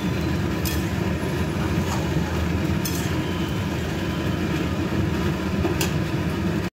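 Moong dal cooking in a pan on the stove, just added to the masala, with a steady low bubbling rumble. A few faint clicks, likely the spoon touching the pan, come about a second in, at two and three seconds, and near the end.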